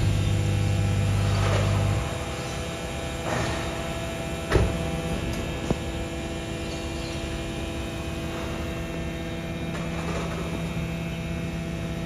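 Steady electric hum from a BYD electric garbage truck, several steady tones at once. Its deepest tones drop away about two seconds in, and a couple of faint knocks come through about halfway.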